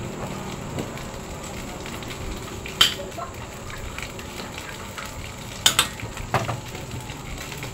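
A metal spoon clinking against a steel wok: one sharp clink about three seconds in, then a quick pair and one more around six seconds, over a steady hiss.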